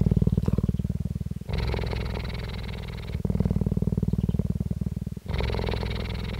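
A female cheetah purring steadily right at the microphone, a fast, even pulsing. The purr switches about every two seconds between a deeper phase and a brighter, breathier one as she breathes in and out.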